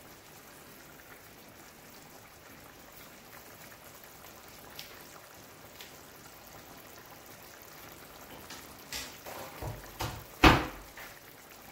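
Coconut-milk sauce simmering in a skillet: a faint, steady bubbling. A few knocks near the end, one of them sharp and much louder than the rest.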